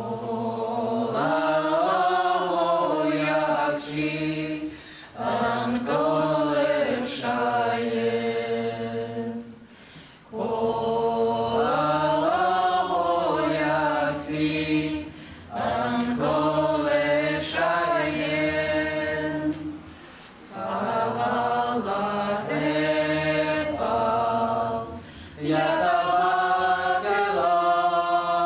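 A small mixed group of men's and women's voices singing together unaccompanied, in phrases of about five seconds with short pauses for breath between them.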